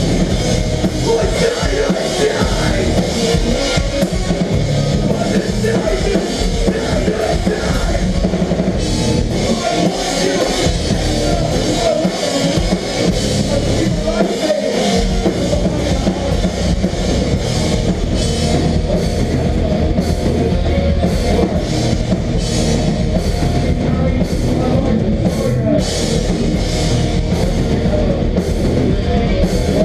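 Live melodic hardcore band playing loud, with heavily distorted guitars, bass and a pounding drum kit. Regular cymbal strikes grow prominent in the second half.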